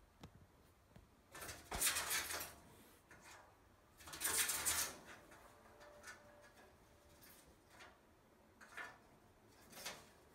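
An animal scratching inside a metal wood-stove pipe: two loud stretches of scraping, about two and four seconds in, then two short, fainter ones near the end.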